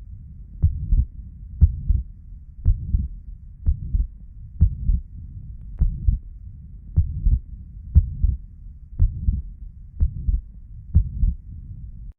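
Heart sounds heard by auscultation: a regular lub-dub pair of low thuds about once a second, with a steady low rumble between the beats.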